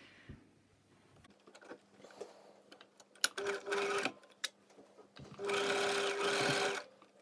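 Domestic sewing machine stitching a seam in short runs: a brief burst of stitching about three and a half seconds in, then a longer steady run of about a second and a half near the end, with a few clicks and fabric handling before it.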